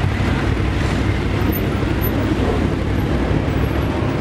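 Many motorcycle engines running together at low speed as a column of motorbikes rolls slowly past close by, a steady dense engine sound with no single machine standing out.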